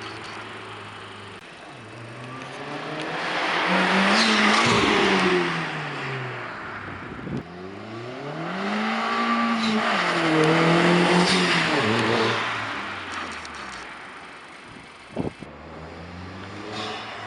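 Volkswagen Jetta 1.8T turbocharged four-cylinder with a Magnaflow exhaust, revved up and let back down twice, the pitch climbing and falling each time. There is a brief sharp sound about 15 seconds in.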